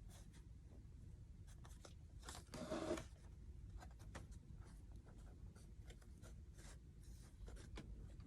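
Faint rustling and light clicks of hands handling stenciling materials, with one louder rustle lasting about half a second near the three-second mark.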